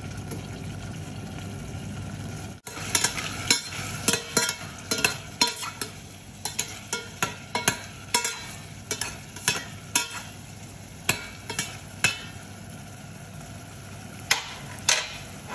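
Meatballs and diced onion sizzling in oil in a stainless steel pot. From about three seconds in, a spoon stirs them, knocking and scraping against the pot many times at an uneven pace.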